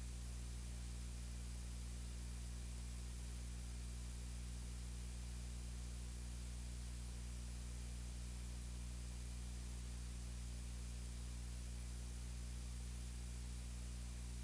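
Steady low electrical hum with a constant hiss, unchanging throughout, with no speech to be heard.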